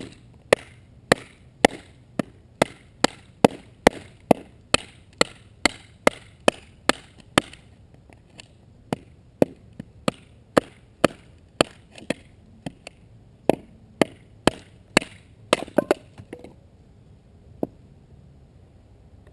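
Bushcraft knife being driven into wood in a run of sharp wooden strikes, about two a second at first, then more irregular with a quick flurry near the end before they stop.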